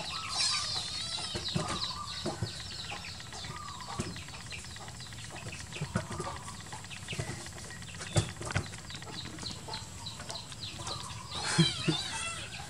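Many short, high-pitched animal chirps and squeaks, with a few sharp knocks scattered through and a busier burst of chirps near the end.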